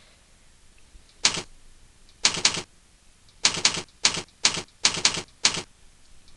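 Typing: about ten sharp key clacks in an uneven rhythm as a name is entered.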